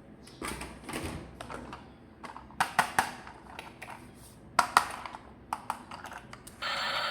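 Plastic toys and packaging being handled during an unboxing: irregular sharp clicks, taps and rustles in little clusters. Near the end a loud steady electronic sound from a toy switches on and holds.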